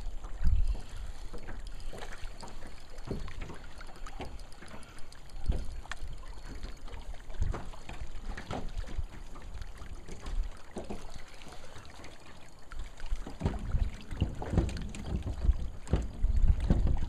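Wind rumbling on the microphone, with scattered small clicks and knocks throughout.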